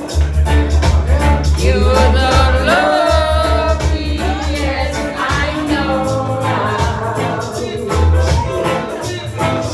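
Latin American dance music with a sung vocal, heavy bass and a steady percussion beat, played loud through a sonidero sound system.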